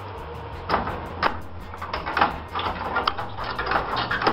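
Rusted sheet steel of a truck cab's rocker panel being wrenched loose by hand. There are irregular sharp crunches and scrapes of metal and flaking rust, coming more thickly in the second half.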